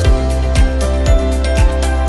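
Upbeat background music: sustained chords over a steady kick-drum beat of about two hits a second, with a light high percussion tick between the beats.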